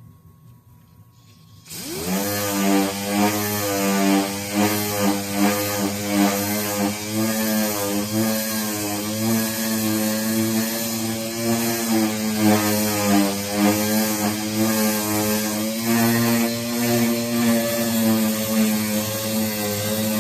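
A power tool's motor starts abruptly about two seconds in and runs steadily, its pitch wavering slightly as it works, with a strong hiss over the hum.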